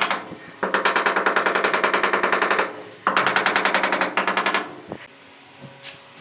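Small hammer tapping rapidly on a ceramic wall tile, about ten light strikes a second, bedding the tile into its adhesive. Two runs of tapping, the first about two seconds long, the second about a second and a half.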